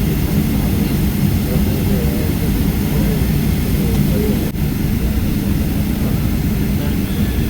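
Steady low rumble of a jet airliner heard from inside the passenger cabin, with faint voices in the background. It dips briefly about four and a half seconds in.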